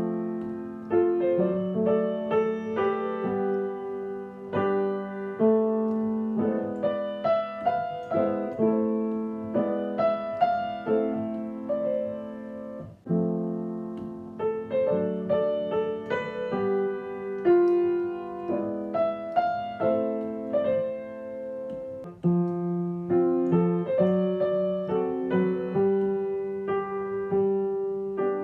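Solo piano playing a pop song by ear, chords under a melody line, entering strongly right at the start. There are brief breaths between phrases about 13 and 22 seconds in.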